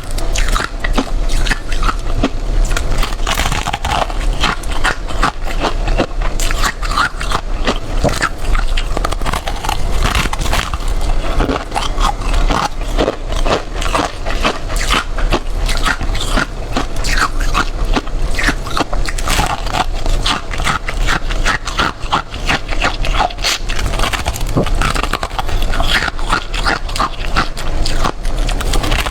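A person biting and chewing freezer frost, a continuous run of rapid crunches and crackles with no pause.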